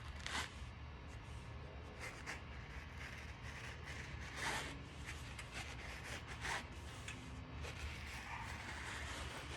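Tire lever working a clincher tire's bead off a bicycle wheel rim: several short, faint scrapes and rubs a second or two apart, over a low steady hum.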